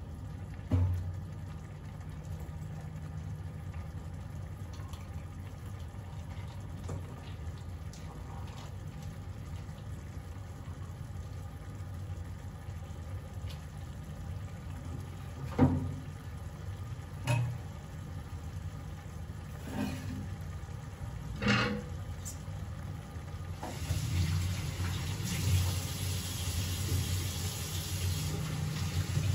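Yellow pea chole gravy simmering in an iron karahi, with a steady low hum underneath and a few sharp pops of bursting bubbles. A hissing sizzle swells over the last few seconds.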